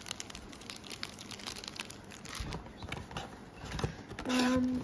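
Foil trading-card packs and cardboard box flaps crinkling and rustling as they are handled, with small clicks throughout. A brief steady hum near the end.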